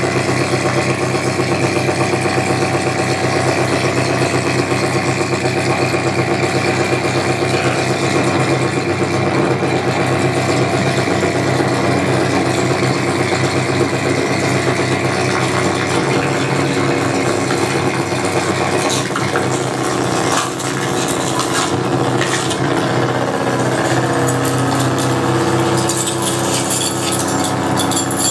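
Live experimental electronic music from synthesizers and tabletop electronics: a loud, dense, steady drone of layered tones. In the last third, crackling noise and tones sliding in pitch come in over it.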